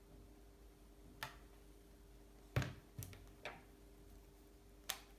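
A few short, light clicks and knocks of small objects being handled and set down, the loudest about halfway through, over a faint steady hum.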